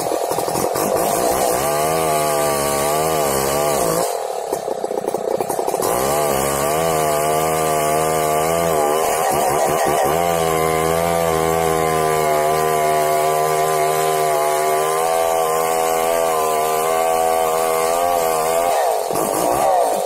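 Chainsaw running hard as it cuts into a large tree trunk. Its pitch wavers up and down through the cut, and it eases off briefly about four seconds in.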